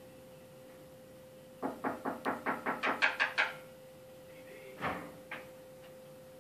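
A quick run of about ten sharp knocks, about five a second and growing louder, then a single heavier thump and a small click, over a steady faint hum.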